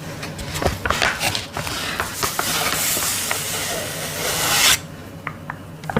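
Sleep mask packaging being handled and opened close to the microphone: a few crinkly taps and clicks, then a long rubbing rasp of about three seconds that stops suddenly, followed by light clicks.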